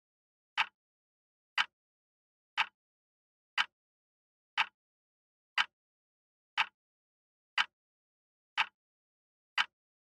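Acctim radio-controlled quartz wall clock ticking: one short, sharp click each second as the second hand steps, evenly spaced with nothing in between.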